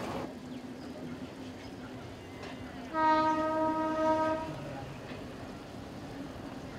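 A Mumbai suburban local train's horn sounds once about three seconds in, a single steady note held for about a second and a half, over a faint low steady hum.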